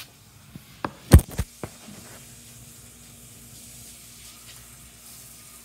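Handling knocks from the recording camera being set down: a quick cluster of clunks about a second in, the loudest a sharp thump, then a faint steady hum.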